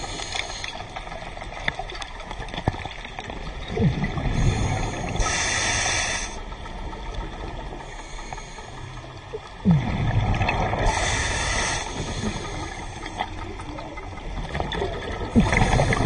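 Scuba diver breathing through a regulator underwater: a hissing inhale and a bubbling exhale, repeating about every five or six seconds.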